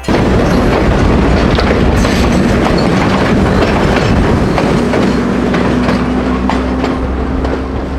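Moving passenger train's carriages rattling and clattering over the rails, heard from an open carriage doorway: a loud, rickety, rackety din. A steady low hum grows stronger about halfway through.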